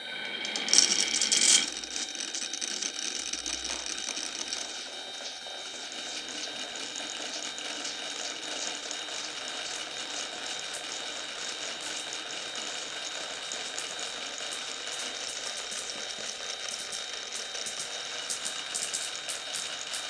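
Marbles rolling and clattering down a toy marble run, with a dense run of small clicks and rattles throughout. A louder clatter comes about a second in.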